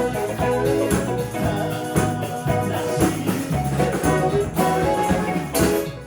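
A band playing live, with held chords and regular percussion hits. The music stops on a last strong hit near the end.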